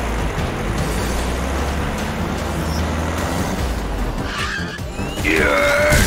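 Cartoon vehicle sound effects: a steady engine rumble as two vehicles drive along, then a short tire screech about five seconds in as they brake to a stop.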